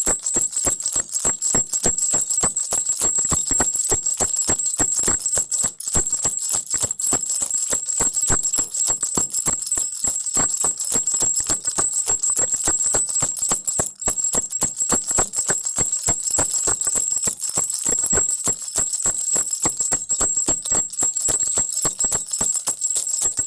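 Crocodile baby rattle shaken continuously: a fast, uneven stream of rattling clicks with a bright jingle over it.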